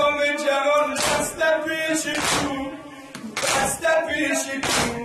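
Men's voices singing a Shia noha (mourning lament) in a steady chant, led on a microphone, with hard chest-beating slaps (matam) landing in rhythm about once a second.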